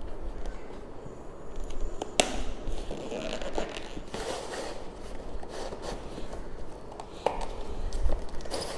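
Packaging of a toy ring-cap gun being opened by hand: irregular rustling and scraping, with a few sharp clicks, the sharpest about two seconds in and again about seven seconds in.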